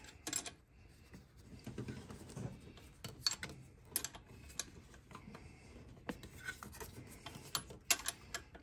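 Irregular light metal clicks and clinks as a Honda Civic alternator is worked by hand up into its adjustment bracket, the loose alternator and bracket tapping together.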